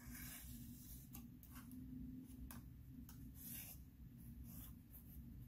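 Marker pen scratching a series of short strokes across cardboard, faint, with a longer stroke at the start. A low steady hum runs underneath.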